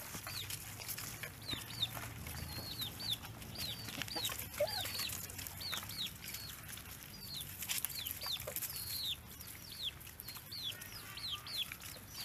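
Chicks peeping: short, high, falling peeps, often two close together, repeated about twice a second.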